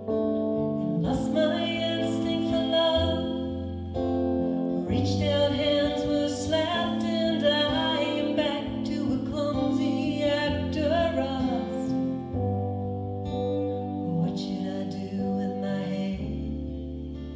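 Live acoustic performance: female voices singing over a keyboard and an acoustic guitar. The singing comes in about a second in and thins out near the end.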